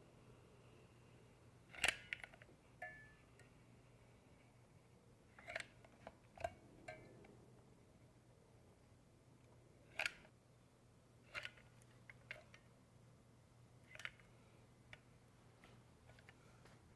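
Near-silent room tone broken by a handful of light, sharp clicks and taps a few seconds apart, one with a brief metallic ring, as a tube of silicone sealant is worked along sheet-metal Z-closure trim.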